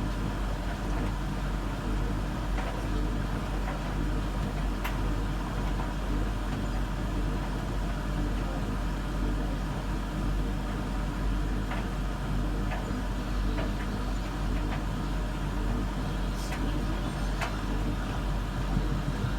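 Whirlpool Zen washing machine rinsing padded jackets on the synthetics programme: the drum runs with a steady low hum, with a few light clicks now and then.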